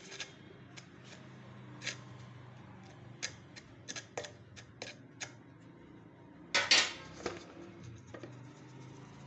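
Stainless steel mug and steel mixing bowl clinking and tapping together as flour is scooped and tipped into the bowl: a series of sharp metallic taps, with a louder clatter about two-thirds of the way through.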